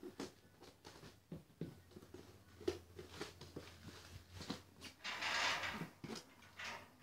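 Hands handling and opening a cardboard parcel: irregular taps, knocks and scrapes against the box, with one longer tearing rasp a little past five seconds in.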